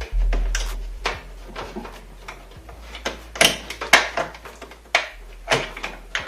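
Sharp plastic and metal clicks and knocks from a desktop PC being taken apart by hand, as cables such as the hard drives' SATA cables are unplugged and pulled out. Irregular, with the loudest knocks about halfway through and again near the end.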